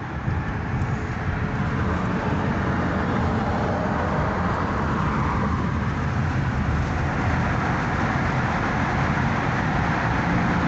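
Steady road and engine noise from inside the cabin of a moving car.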